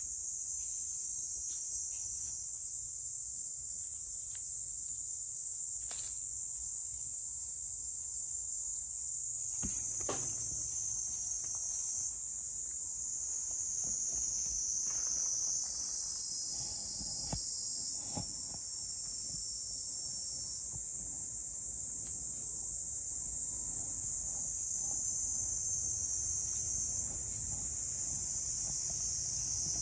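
Steady, high-pitched buzzing of a summer insect chorus that runs on without a break. Now and then come soft rustles and clicks of dry leaf litter.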